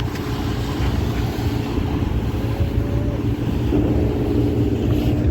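A motorboat's engine running at a steady drone, getting slightly louder near the end.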